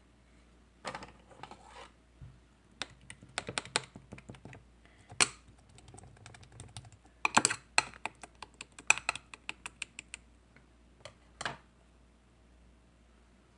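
Irregular runs of quick, sharp clicks and taps, several a second, in bursts separated by short pauses.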